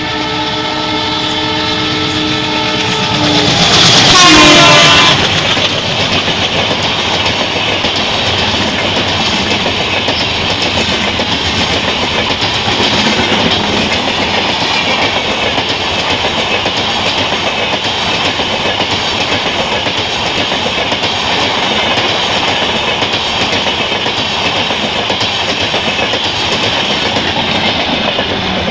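Express train locomotive sounding its horn in one long blast as it approaches, the pitch falling sharply as it passes close by. LHB coaches then rush past at speed with a steady rolling roar and clickety-clack of wheels over rail joints.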